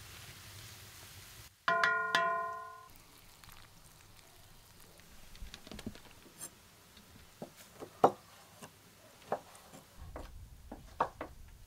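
Knife cutting dried mushrooms on a wooden cutting board: irregular sharp cuts, several in quick runs. Before that, a frying hiss from a cast-iron pan is broken off about one and a half seconds in by a loud ringing tone that fades over about a second.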